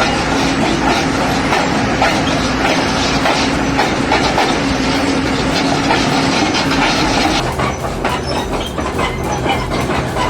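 Kobelco SK380HD excavator working its steel track back on: dense clanking and knocking of track links over a steady hydraulic whine. About seven seconds in the whine gives way to a lower hum.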